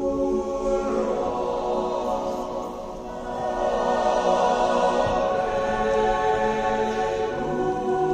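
Choir singing long, held chords that move to new chords about a second in and again near the end.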